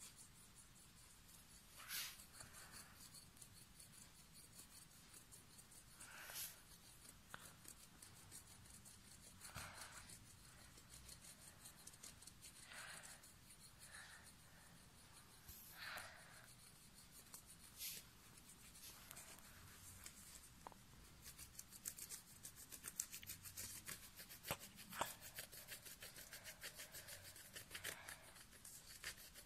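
Faint scratching of a coloured pencil shading on paper, in separate strokes every few seconds at first, then quicker back-and-forth scribbling in the last several seconds.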